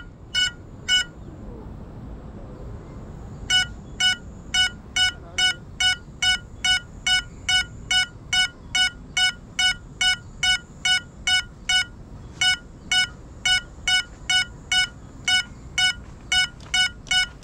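Crashed FPV quadcopter's buzzer beeping in an even series as a lost-model alarm while the drone lies still: three beeps, a pause of about two and a half seconds, then about two and a half beeps a second. A faint steady high whine runs underneath.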